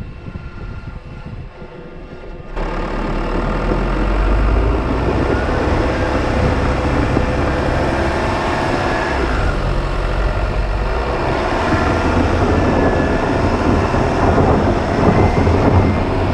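A side-by-side utility vehicle driving along a rough farm trail: a loud, steady rumble and rattle, which grows suddenly louder and heavier about two and a half seconds in.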